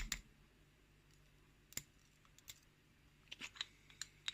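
A few small, sharp clicks and taps, scattered with a quick cluster near the end: the little pins and springs of a lock cylinder being picked out and set down as the lock is disassembled.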